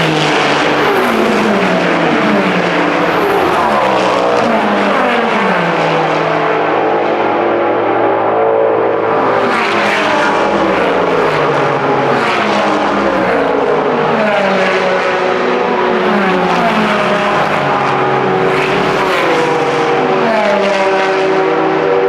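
A pack of endurance race cars, Le Mans hypercars followed by GT3 cars, accelerating hard down a straight. Many engine notes overlap, each climbing in pitch and dropping back at every upshift, and some fall away as cars pass and pull clear.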